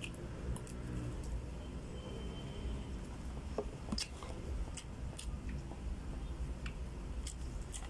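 A person chewing a mouthful of food close to the microphone. Now and then a spoon clicks sharply against a plastic food container, over a steady low hum.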